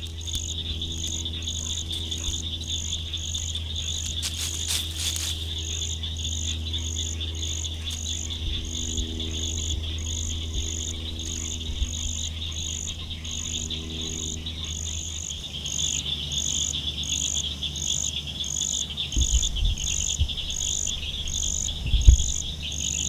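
Insect chorus: a steady high trill with a second insect call pulsing regularly about twice a second above it. A low steady drone lies underneath and fades out about two-thirds of the way through, and a few low thumps come near the end.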